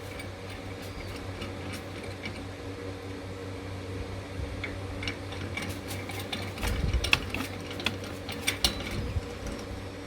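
Metal clicks, taps and light knocks from a steel beam connector and clamp being handled and adjusted on a metal beam. They start about halfway through and are busiest near the end, over a steady low hum.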